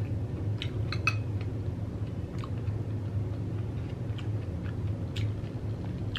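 A person chewing a mouthful of a crunchy Xxtra Hot Cheetos taco bowl, with a cluster of crisp crunches about a second in and scattered single crunches after, over a steady low hum.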